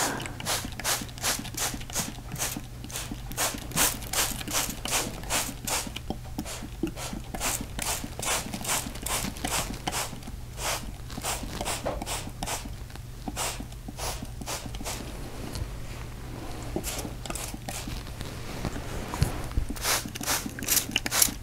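Trigger spray bottle of water squirted over and over onto a quilt: short hissing sprays at about two a second, thinning out for a few seconds past the middle before picking up again.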